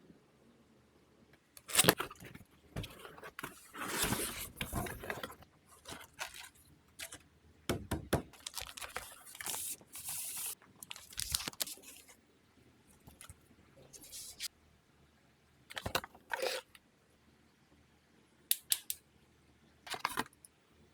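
Packaging being handled and opened during a keyboard unboxing: irregular rustling, scraping and tearing noises in short bursts, busiest in the first half, then sparser with quiet gaps.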